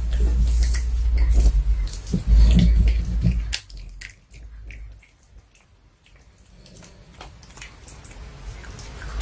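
Pomeranian crunching and chewing a duck cartilage-bone treat close to the microphone: a run of sharp crunches over a low rumble that stops about three and a half seconds in, leaving only a few faint ticks.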